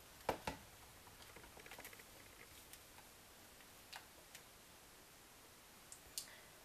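Near silence with a few faint clicks and taps of a spatula and plastic cup as soap batter is handled: two clicks just after the start, one about four seconds in and one near the end.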